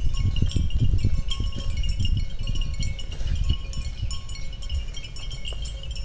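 Cattle grazing close by: irregular low tearing and munching of grass, the loudest sound, with a light high tinkling over it throughout.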